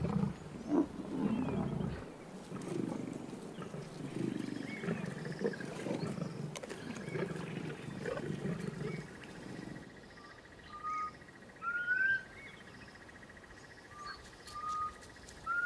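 Lions growling for about ten seconds. Then the growling stops, and short rising bird calls sound over a faint steady high whine.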